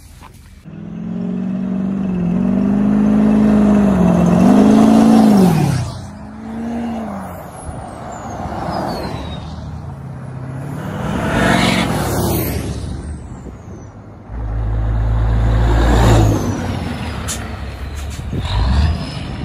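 Diesel truck engines revving and accelerating hard, their pitch climbing and dropping through gear changes in several runs. A loud low rumble lasts about two seconds near the end.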